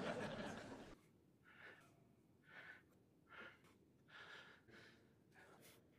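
Near silence: a faint hiss fades out over the first second, then a handful of very faint, short, breathy puffs come about once a second, like a man breathing near a microphone.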